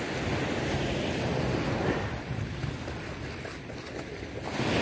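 Sea surf washing onto a pebble beach, with wind buffeting the microphone; the surf swells louder near the end.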